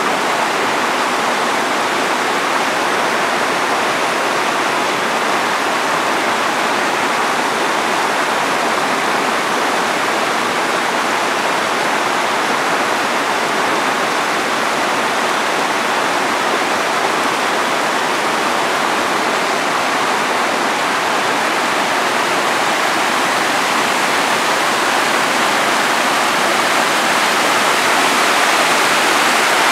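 Mountain torrent rushing and splashing over rocks in small cascades: a steady rush of white water that grows a little louder near the end.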